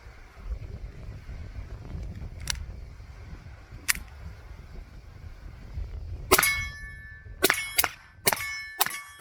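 Taurus TX22 .22 LR pistol firing about six quick shots, starting about six seconds in, each followed by a metallic ring that sounds like a steel target being hit. Before the shots there is a low wind rumble on the microphone.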